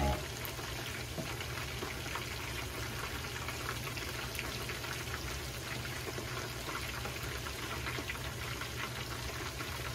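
Chicken karaage pieces frying in a shallow pan of hot oil, sizzling steadily with many small crackles, over a low steady hum. The chicken is near the end of frying, golden by colour.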